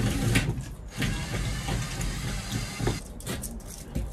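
Knocks and clatter, then a cordless drill running steadily for about two seconds and stopping abruptly, as screws are backed out of the RV's wooden ceiling beams.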